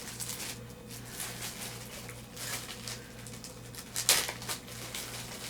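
Rustling and scratching of items being handled and moved about, with a louder rustle about four seconds in, over a steady low hum.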